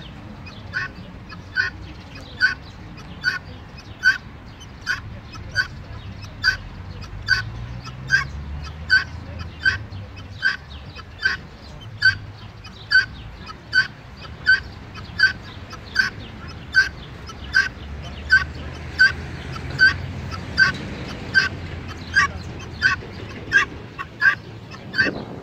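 Helmeted guineafowl calling: a steady series of short, sharp, harsh calls repeated evenly, a little over one a second.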